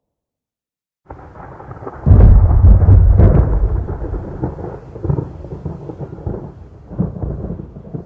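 Thunder from a lightning strike: after about a second of silence a rumble starts, swells into a loud, deep crash about two seconds in, then rolls on with crackling peaks, slowly fading.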